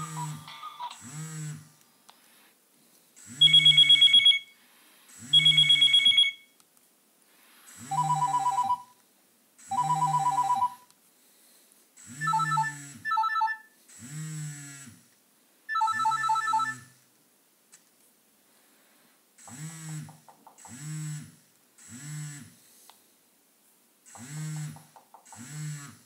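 Nokia 6600 mobile phone's loudspeaker previewing its built-in ringtones one after another. The tail of the cuckoo tone comes first. Then come the "Desk phone hi", "Desk phone lo" and "Desk phone" tones, each an imitation desk-telephone trill ringing in short double bursts, the high one loudest. Near the end comes the recorded door-knock sample, a few short knocks.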